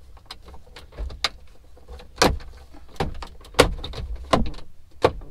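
Hard plastic interior trim pieces of a pickup's center console and dash clicking and knocking as they are handled and pressed into place: a string of sharp taps, the loudest a little over two seconds, about three and a half seconds and about five seconds in.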